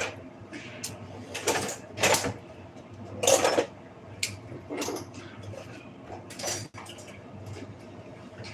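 Dishes and cutlery clattering and clinking as they are washed by hand, in separate knocks a second or so apart.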